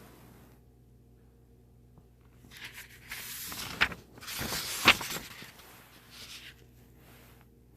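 Paper rustling, as of a picture book's pages being handled and turned, with two sharp taps about a second apart in the middle of it.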